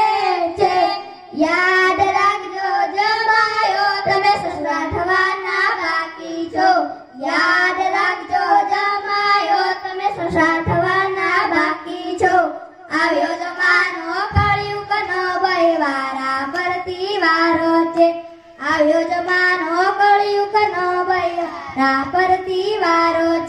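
Boys singing a Gujarati qawwali into microphones, amplified through a loudspeaker, in long sung phrases with brief pauses between lines, over a steady lower tone.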